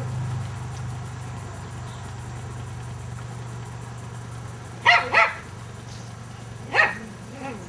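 Nova Scotia Duck Tolling Retriever giving short, high-pitched barks: two in quick succession about five seconds in, and another near the end, over a steady low hum.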